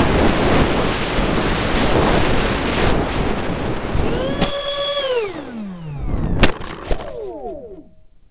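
Heavy wind noise on the microphone, then the RC A-10's electric ducted fan motors whine and wind down, falling steadily in pitch, with two sharp clicks along the way, until they stop shortly before the end.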